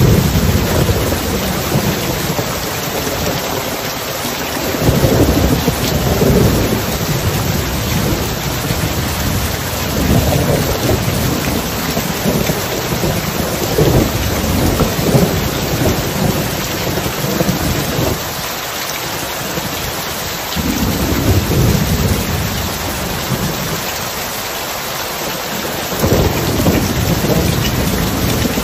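Thunderstorm ambience: steady heavy rain with low rolls of thunder swelling and fading several times.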